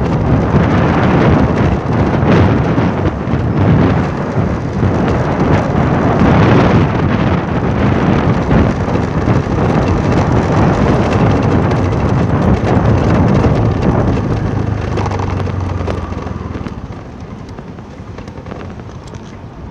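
Heavy wind buffeting on the microphone of a moving vehicle, with road and engine noise underneath; it eases off and gets quieter about three-quarters of the way through.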